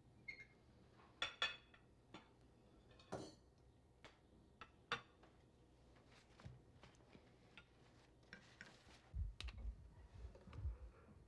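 Near silence with scattered faint clicks and knocks, and a few dull low thumps near the end.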